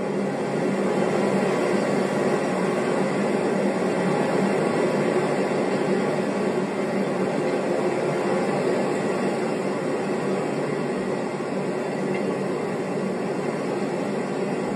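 Loud, steady rushing noise like strong wind, continuous and unbroken, presented as hurricane winds.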